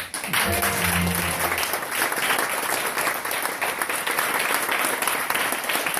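Audience applauding steadily, with the last low notes of the backing music fading out in the first second and a half.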